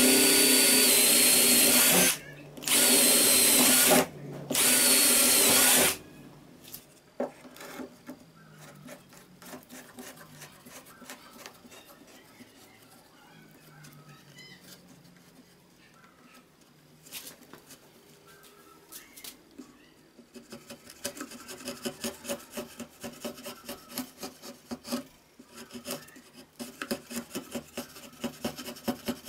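Cordless drill boring through a wooden board, three runs of about two seconds each with a steady motor whine, followed by light knocks of handling. About twenty seconds in, rapid rhythmic rubbing strokes of the board's edge being smoothed by hand.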